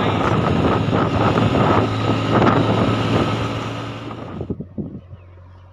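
JCB 3DX backhoe loader's diesel engine running with a steady low hum and loud clatter. Most of the noise drops away suddenly about four and a half seconds in, leaving a fainter hum and a few knocks.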